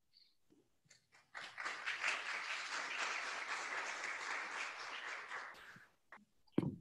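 Audience applauding for about four and a half seconds, starting a little over a second in and fading out. A brief thump follows near the end.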